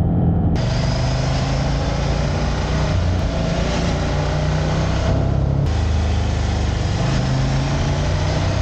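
Motorcycle engine running at road speed, its note shifting up and down as the revs change, with wind rushing over the microphone.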